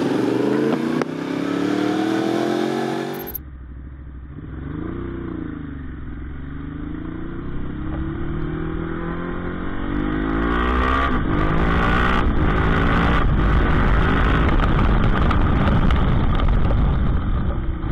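Motorcycle engine accelerating, its pitch climbing and dropping as it revs. About three seconds in, it cuts to a second motorcycle's engine, duller, also revving up and down. From about halfway through, rushing wind noise grows louder over it.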